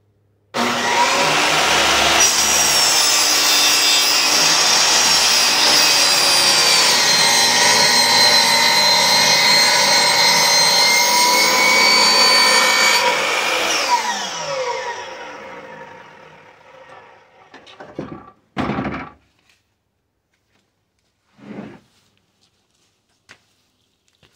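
Sliding compound miter saw starting abruptly and running for about twelve seconds as its blade cuts through old lumber, then winding down with a falling whine. A few short knocks follow near the end.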